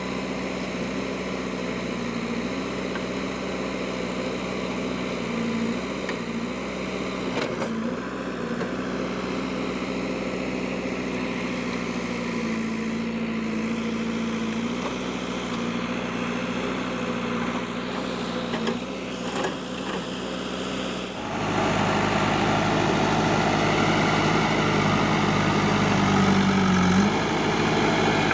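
Diesel engine of an old Kirloskar-engined JCB backhoe loader running steadily, its pitch shifting a little with load. About three quarters of the way through, it suddenly grows louder and rougher.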